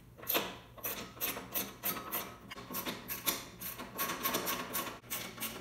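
Ratchet wrench clicking in a quick, uneven run of metallic clicks, about three a second, as nuts on the compressor motor are turned.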